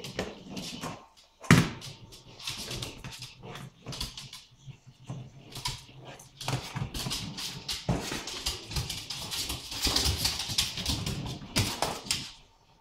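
Small dog playing with a toy ball on a wooden floor: irregular clicks and scuffles of claws and paws and of the ball being knocked about, with one sharp knock about a second and a half in and busier scrabbling in the second half.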